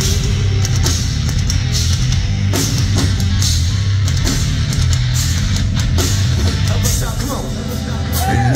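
Live heavy rock band playing loud, with a heavy electric bass line and pounding drums.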